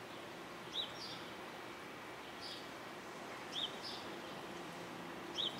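A small bird chirping, short two-part calls about every two seconds, over a steady faint background rumble.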